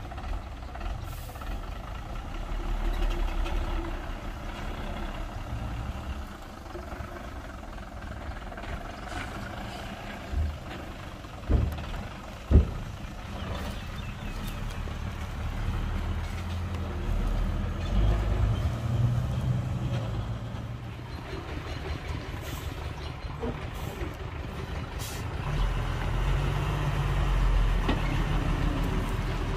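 A dump truck's diesel engine running, its rumble swelling and easing. Two sharp heavy thumps come about a second apart near the middle.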